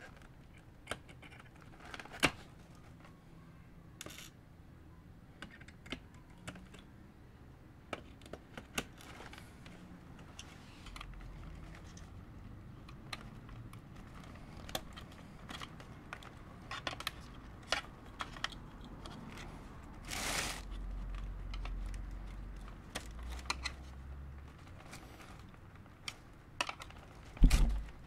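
Scattered small clicks and taps of pliers and a thin screwdriver prying at the plastic retaining clips on the back of a 2021 Ram 2500 grille, freeing the chrome letters. There is a brief scrape about twenty seconds in and a louder knock near the end.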